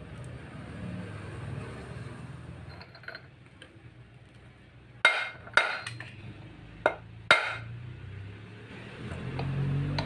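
Four sharp metal-on-metal knocks, each with a brief ring, from a steel bar striking the gear shaft of a disassembled Suzuki Multicab manual transmission, over a low steady hum.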